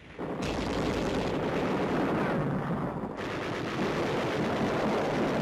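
Belt-fed machine guns firing continuously, a dense rattle of rapid shots that begins right at the start, its sharp top end easing off for about two seconds in the middle.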